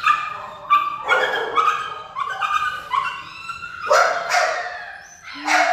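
Shelter dog barking repeatedly in a kennel, about a dozen sharp, high-pitched barks in quick succession, with the loudest about four seconds in and near the end.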